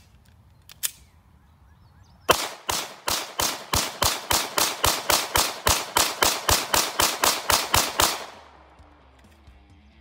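A handgun fired in a rapid string of about two dozen shots, roughly five a second, each shot with a short echo; the string starts about two seconds in and stops about two seconds before the end.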